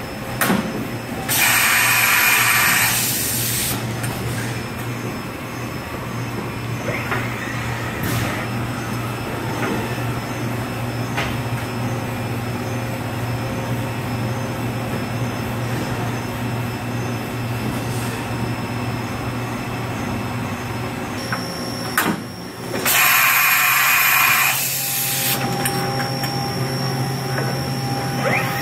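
Kuraki KV-700 CNC vertical milling machine running a cut: a steady motor and spindle hum with the rattle of cutting under it. Two loud bursts of hissing, each about two and a half seconds long, come about a second in and again about 23 seconds in, and a steady high whine joins near the end.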